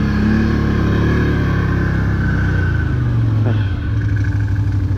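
Can-Am 6x6 ATV's V-twin engine running as the machine drives, then its pitch falls about three seconds in as it slows and settles to a lower, steady idle.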